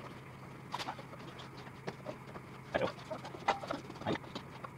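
Handling noise of a rubber drive belt being worked by hand onto the pulleys under a riding mower: scattered short rustles and light knocks of belt against metal.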